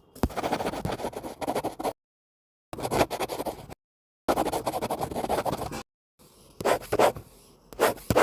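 Paper book pages being turned and riffled: crisp, crackly rustling in four separate spells, each starting and stopping abruptly with dead silence between. The last spell breaks into a few single page swishes.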